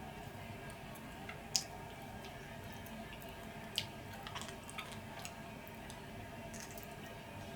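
Close-up eating sounds of someone chewing chicken wings: a few short, wet mouth clicks and smacks, spaced a second or two apart, over a steady low background hum.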